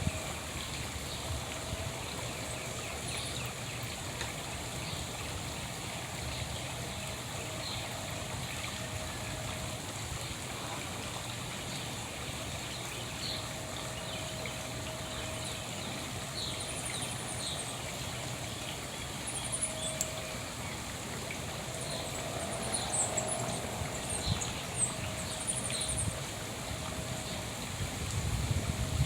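Small wild birds giving short, high chirps now and then, more of them in the second half, over a steady hiss.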